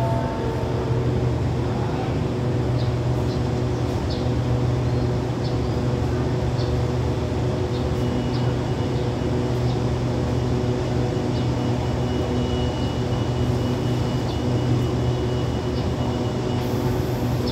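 Steady drone of a stationary diesel passenger train idling at the platform: the engines and carriage air-conditioning running with a constant low hum. A faint high whine joins about halfway through and stops shortly before the end.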